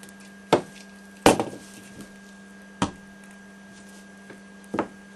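Four sharp metal clinks and knocks as a small wick camp stove's parts (pot stand, wick holder and pot) are handled and set down on a table; the second knock rings briefly. A steady low hum runs underneath.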